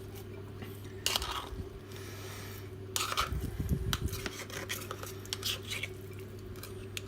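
Knife and fork clinking and scraping against a dish, cutting a lump off a block of canned formed chicken, with a denser stretch of scraping and a dull knock about three seconds in.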